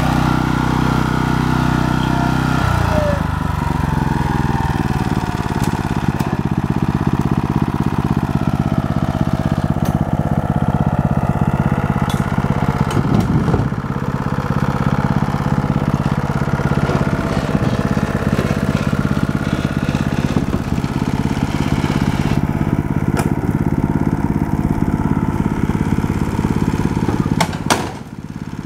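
Walk-behind tractor's small engine running steadily, its note dropping about two and a half seconds in, with a few sharp knocks of split firewood being unloaded from the barrow.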